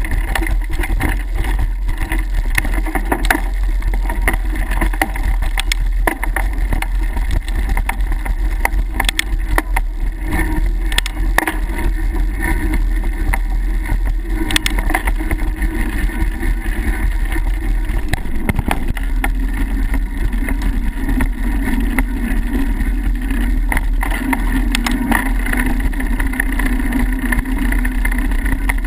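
Mountain bike rolling fast over a dirt singletrack trail, heard from a camera mounted on the rider or bike: a steady low rumble of wind and motion on the microphone, with frequent sharp rattles and clicks as the bike jolts over bumps.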